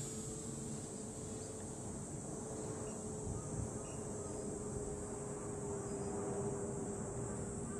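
Tiny electric motor and propeller of an ultra-micro Crack Pitts RC plane running steadily in flight: a thin high-pitched whine with a lower hum that eases slightly down in pitch, over low wind rumble.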